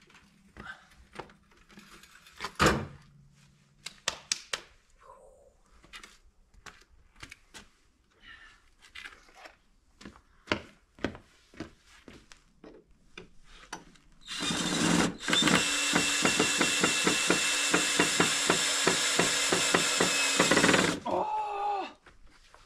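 Scattered clicks and knocks of handling wood and screws, then an electric drill running steadily for about seven seconds, driving a screw into hard wood, before it stops abruptly.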